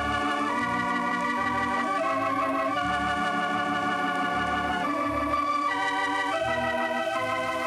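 Organ playing a slow run of held chords that change about once a second, the music bed of a 1940s radio show's closing.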